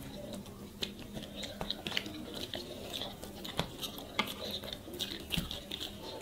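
Eating by hand: fingers mixing rice and fish curry on plates, with many small scattered clicks and wet squishing, and some chewing.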